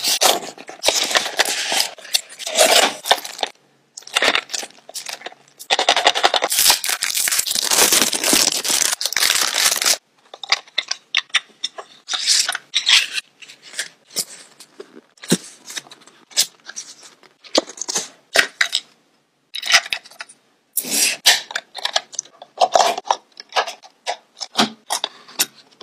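Unboxing handling sounds: packaging rustled and torn for the first ten seconds or so, then a string of short plastic clicks and scrapes as a cassette case is opened and a battery is fitted into a cassette player.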